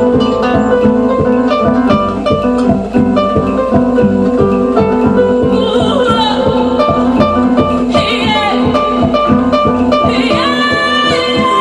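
Electric harp playing a fast, evenly repeating plucked figure over sustained bass notes, in live performance. A higher, wavering melody line comes in over it about six seconds in and returns twice.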